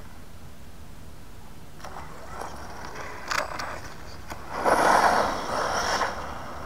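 Electric RC 4x4 truck with a 3650 3500kv brushless motor on 4S launching hard on asphalt about four and a half seconds in. It makes a burst of tyre and drivetrain noise with a high motor whine, then fades as the truck drives away. A few light knocks come before the launch.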